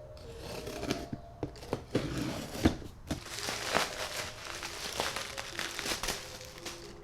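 A mail package being opened by hand: packaging crinkling and tearing in irregular bursts, with sharp cracks, over quiet background music.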